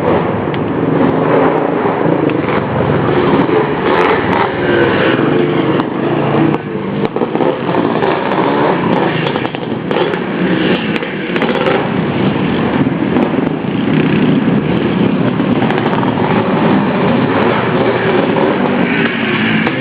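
Dirt bike engine running hard on an off-road trail, its loudness rising and falling, with scattered sharp clicks.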